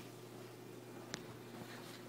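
Quiet room tone with a faint steady hum and hiss, and one small sharp click about a second in.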